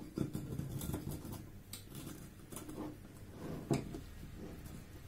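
Metal serving spatula and fork scraping and clicking against a glass baking dish while a portion of cheese-topped baked bread is lifted out, with a few separate clinks, the sharpest about three and a half seconds in.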